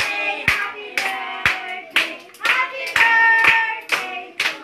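A group singing a birthday song while clapping along in a steady beat, about two claps a second.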